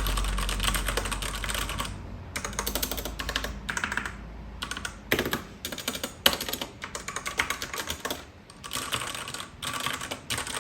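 Typing on a MageeGee 60% mechanical keyboard with Outemu Red linear switches: quick runs of keystrokes that stop briefly several times.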